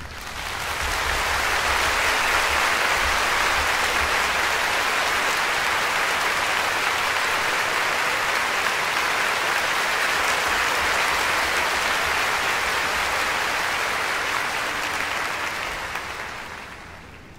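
Large concert-hall audience applauding. The applause swells in quickly at the start, holds steady, and fades out near the end.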